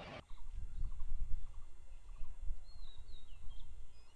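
Wind rumbling on the microphone, with birds chirping faintly: a few short whistled notes, rising and falling, between about two and a half and four seconds in.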